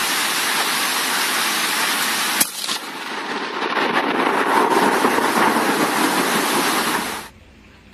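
Steady hiss of heavy rain, with a single sharp crack about two and a half seconds in; the hiss cuts off abruptly near the end.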